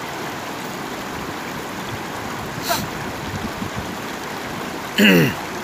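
Shallow rocky river rushing steadily over rapids. Near the end, a short loud call that falls in pitch.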